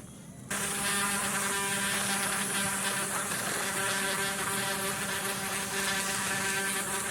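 Small electric motor of a homemade toy helicopter spinning its propeller: a steady high buzz that cuts back in about half a second in and then runs evenly.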